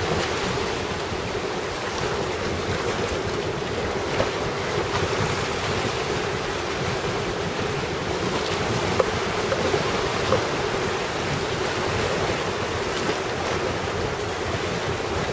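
Rough sea in storm swell: big waves and surf washing and breaking steadily, with wind buffeting the microphone. The heavy surf is raised by a typhoon's outer circulation.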